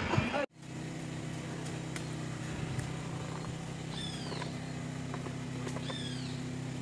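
A steady engine hum from a generator running, starting after a cut about half a second in. A bird gives two short calls that arc downward, about four seconds and six seconds in.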